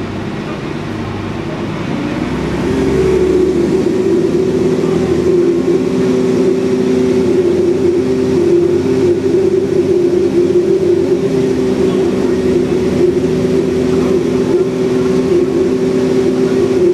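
Cummins ISBe diesel engine of an Alexander Dennis Enviro400 double-decker bus, revving up as the automatic gearbox kicks down about three seconds in. It then runs hard at high revs with a loud, steady, pitched drone.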